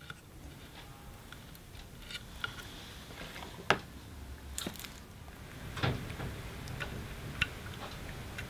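Faint, scattered small clicks and taps, the sharpest a little under four seconds in, over a low hum.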